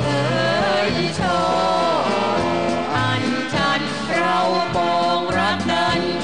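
A man and a woman singing a Thai popular song as a duet, accompanied by a band; the singing has long held notes that glide up and down.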